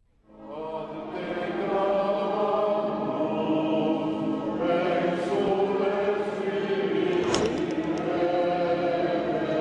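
Choral music: voices holding sustained chords, fading in over the first couple of seconds, with one sharp strike about seven seconds in.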